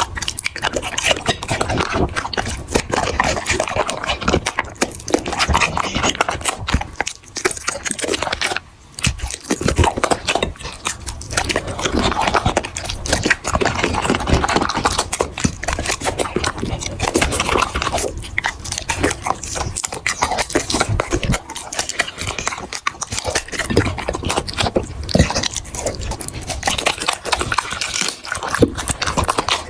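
A puppy eating dry dog food: dense, continuous crunching and chewing of kibble, with a short lull about nine seconds in.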